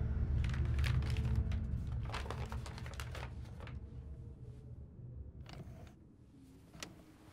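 Paper rustling and quick small clicks of objects being handled, over a low musical drone that fades away in the first couple of seconds. Two more single clicks come later, the second near the end.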